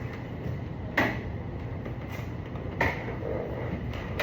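Ducati Panigale 1299's L-twin engine idling through an open exhaust pipe, a steady low rumble, with two sharp clicks about a second in and near three seconds.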